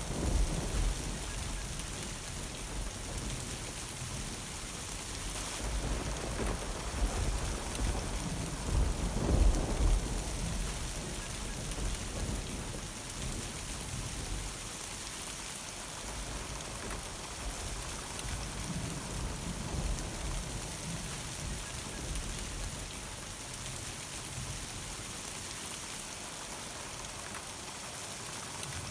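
Steady thunderstorm rain falling, with a low roll of thunder that builds about five seconds in, is loudest around ten seconds in, then dies away while the rain goes on.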